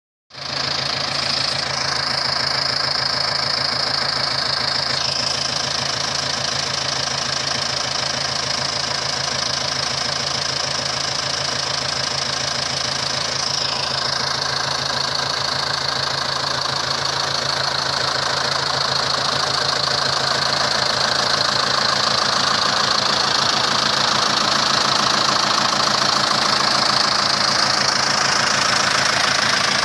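Zetor 7745 Turbo tractor's four-cylinder turbo-diesel engine running steadily, pulling a plough, with a steady high whine above the engine note. It grows slightly louder in the last third.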